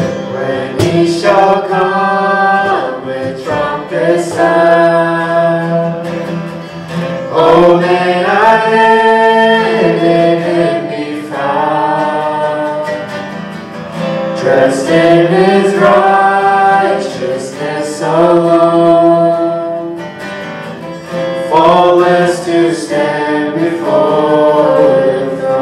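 Live acoustic worship band: voices singing a slow hymn-like worship song in sung phrases, accompanied by strummed acoustic guitar and a cajón.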